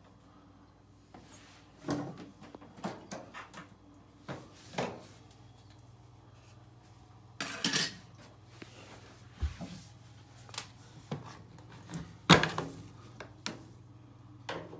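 Scattered plastic clicks, knocks and clatters of hands working on a Samsung front-loading washing machine: the door pushed shut and the lower drain-filter access cover taken off, then a screwdriver set to a screw inside the opening. The loudest clatter comes about twelve seconds in.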